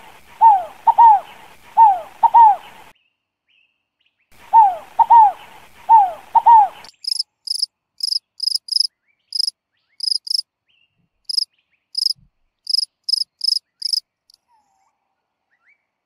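A zebra dove cooing in paired falling notes, in two runs with a short pause between. About halfway through it gives way to a field cricket's short, high chirps at uneven spacing, which stop a couple of seconds before the end.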